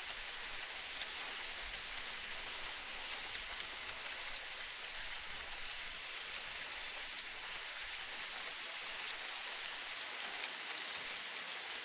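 Steady, even hiss of water noise in an old wooden ship ambience, like rain falling, with a few faint ticks.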